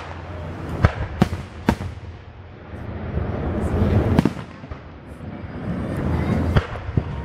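Aerial fireworks shells bursting: three sharp bangs in quick succession in the first two seconds, then a longer rolling rumble of further bursts.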